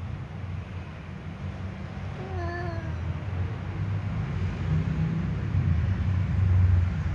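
A cat gives one short, wavering yowl a little over two seconds in, a threat call in a face-off between two cats. Under it a low rumble grows louder toward the end.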